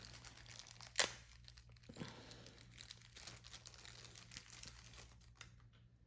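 Faint crinkling and rustling of hands handling the replacement controller battery and small plastic parts at close range, with a sharp click about a second in and a softer one about two seconds in.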